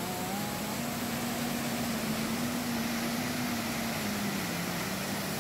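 Small waterfall: an even rush of water pouring over a rock ledge into a pool, with a faint steady low hum underneath.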